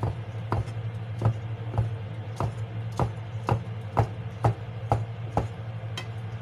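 Chinese cleaver slicing mushrooms thinly on an end-grain wooden cutting board: a steady run of sharp knocks, about two a second, which stops near the end. A steady low hum runs underneath.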